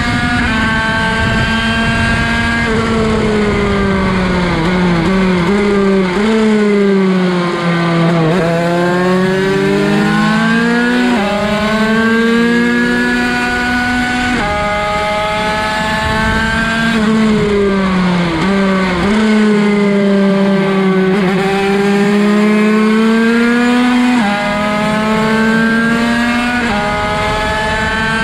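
Onboard sound of a 50cc two-stroke race bike engine (Derbi 50 with a Bidalot cylinder) running at high revs. Twice it drops in pitch in a series of steps as it is shifted down for a corner, then revs back up with quick small drops as it is shifted up with the quickshifter, and holds a steady high note between corners.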